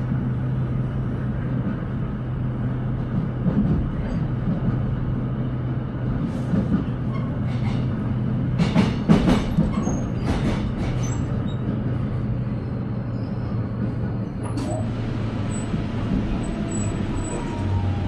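Commuter electric train running, heard from inside the car: a steady low hum, with a cluster of wheel clatter over rail joints around the middle, then a falling whine near the end as the train slows into a station.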